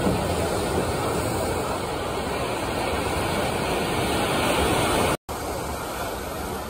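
Steady rushing of water as waves break across an artificial wave pool. The sound drops out for an instant about five seconds in and comes back a little quieter.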